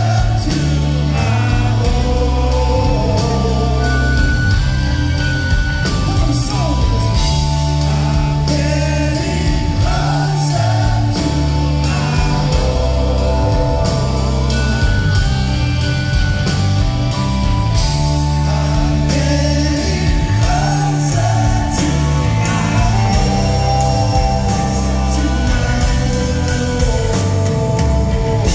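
Live rock band playing with a male lead vocal, electric guitars, bass and drums, heard from the audience in a concert hall.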